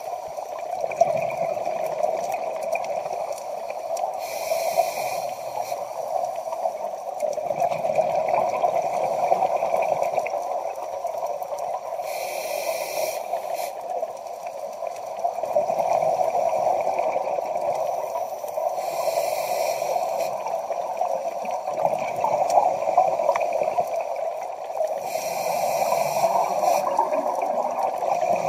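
Scuba regulator breathing heard underwater: short hissing breaths about every seven seconds, four in all, alternating with low bubbling of exhaled air, over a steady underwater hum.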